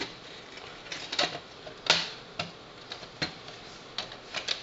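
Sheet-metal top cover of a computer optical disc drive clicking and tapping against the drive's metal chassis as it is fitted back on by hand: several sharp, irregular clicks, the loudest about two seconds in.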